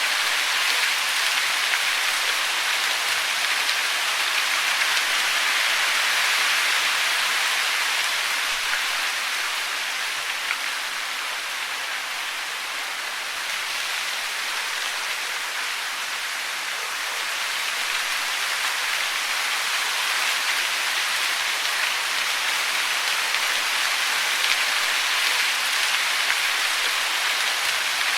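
Steady rushing hiss of falling water, dipping a little in loudness in the middle and then recovering.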